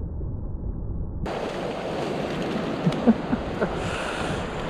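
A fast, shallow river rushing over stones. It sounds muffled for about the first second, then suddenly comes in full and clear, with a few short knocks near the middle.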